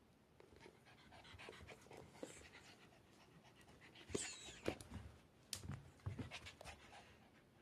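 Papillon dog panting softly, with a scatter of sharp clicks and taps in the second half.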